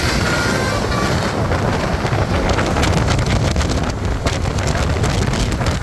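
A bus passes close, its engine rumbling under heavy wind buffeting on the microphone. A few short, high notes of a melodic basuri horn fade out within about the first second.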